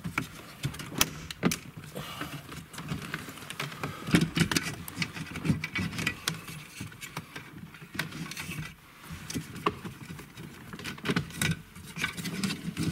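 Irregular plastic clicks, knocks and rattles as the BMW E39's dashboard radio trim frame is pried and pulled at by hand. The frame sits deep and tight and has to be bent open to come out.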